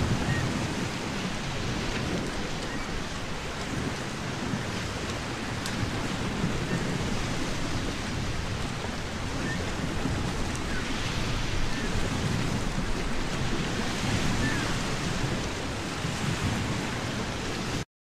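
Wind buffeting the microphone over a steady rush of sea surf, cutting off abruptly near the end.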